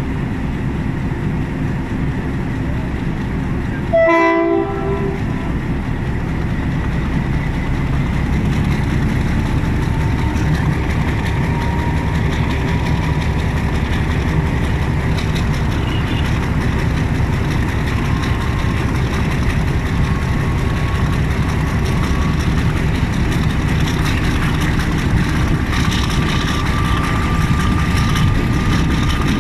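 GRU 20 diesel locomotive working hard as the passenger train accelerates, with a steady heavy rumble. A short horn blast sounds about four seconds in, and a faint whine slowly rises in pitch as the train gathers speed.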